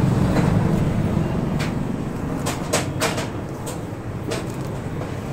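About half a dozen sharp clicks and knocks at uneven intervals over a steady low rumble.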